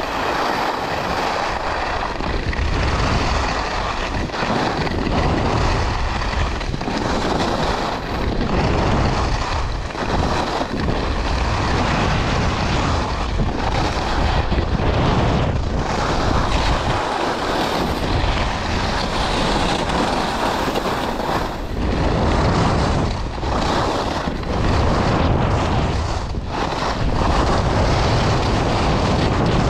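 Steady rush of wind buffeting the microphone of a camera carried down a ski slope at speed, mixed with the hiss and scrape of sliding on groomed, packed snow, swelling and easing with the turns.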